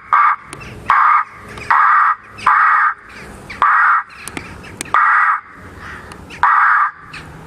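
Acoustic bird repeller's loudspeaker playing recorded crow distress calls, heard as a series of harsh, evenly loud caws about one a second, spaced a little wider toward the end.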